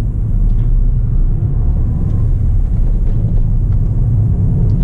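Steady low rumble of a Ford New Fiesta driving, heard from inside the cabin: road and engine noise, with a few faint ticks.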